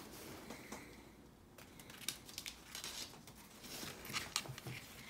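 Faint scattered taps, scratches and rustles of a kitten scrabbling on a wooden floor and grabbing a fabric strawberry wand toy.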